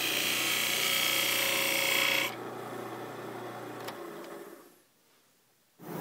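Turning tool cutting the spinning wood of a pepper mill head on a lathe, over the lathe motor's steady hum. A bit over two seconds in, the cutting stops abruptly; the lathe runs on briefly, a click follows, and it dies away to near silence before loud noise returns right at the end.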